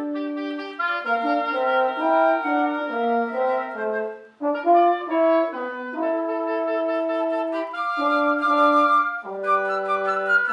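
Wind trio of flute, French horn and oboe playing in harmony, sustained notes moving in chords. The music stops for a moment about four seconds in, then resumes.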